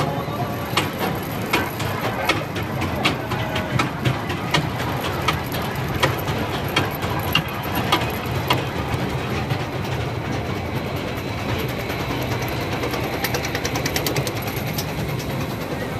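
Junior roller coaster train climbing its chain lift: a steady rumble of the lift chain with a sharp ratchet click about every three-quarters of a second from the anti-rollback pawls. After about ten seconds the train crests and rolls on along the track, with a quicker run of clicks.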